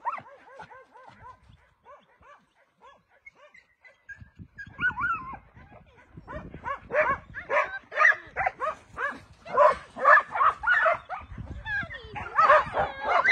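A pack of shelter dogs barking and yipping, excited at being let into a new yard. Faint at first, the barks grow louder and come thick and overlapping from about four seconds in.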